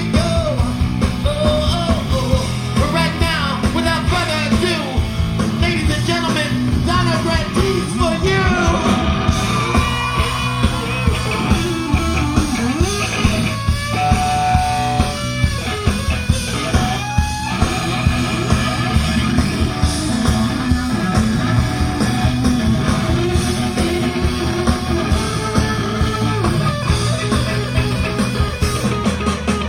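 Live rock band playing: electric guitar with sliding, bending notes over steady bass and drums.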